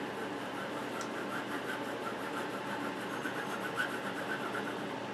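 Nozzle of a super glue bottle rubbing and scraping across a rubber shoe sole as glue is spread on it: a quick run of small scratchy ticks, over a steady low room hum.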